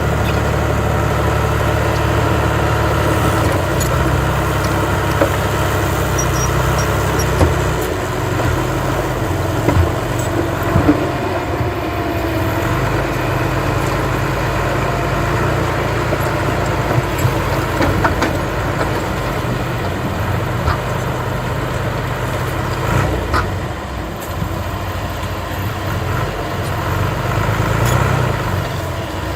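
Heavy diesel earthmoving machinery running steadily at a low drone, with a few scattered knocks and clanks.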